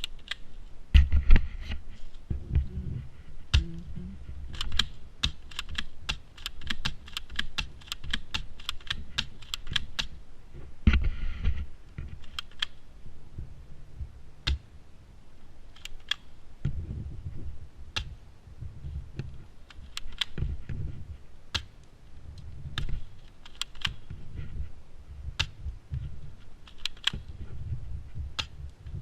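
Airsoft gun firing a series of sharp, snappy shots: scattered single shots, then a quicker run of about three a second, then scattered shots again, emptying the magazine. Low rumbling handling noise runs underneath, with a couple of heavier thumps.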